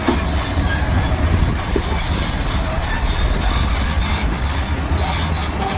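Crawler bulldozer working: a low diesel rumble under the high-pitched squeal of its steel tracks.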